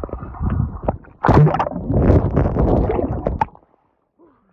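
Muffled underwater sloshing and bubbling as a phone's microphone is dunked in swimming-pool water, with a brief lull about a second in. It cuts off about three and a half seconds in as the phone comes back out.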